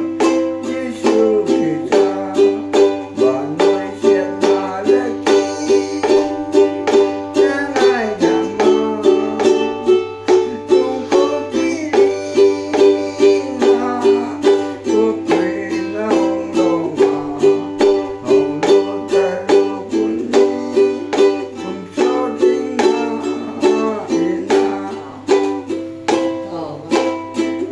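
Ukulele strummed in a steady rhythm, about two to three strokes a second, with men's voices singing along.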